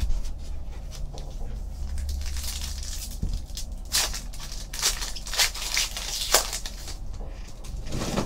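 Foil wrapper of a Panini Contenders football card pack being torn open and crinkled by hand, with a run of sharp crackles in the middle.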